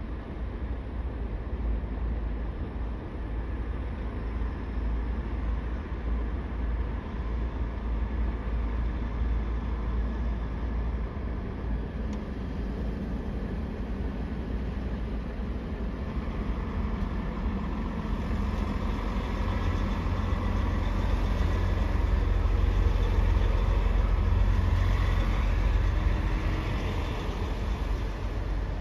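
Low, steady rumble of heavy diesel engines at a ferry port. It grows louder past the middle and eases slightly near the end.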